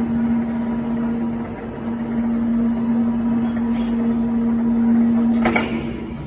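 Electric crane hoist motor running with a steady hum while it carries the heavy drum, dipping briefly about two seconds in, then stopping with a knock near the end.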